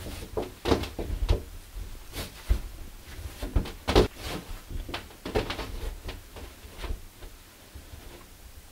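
Steamed rice-flour dumpling dough being kneaded inside a cotton cloth on a stainless steel worktop: irregular dull thumps and knocks as the lump is pressed and pushed against the metal, the loudest about four seconds in, dying down near the end.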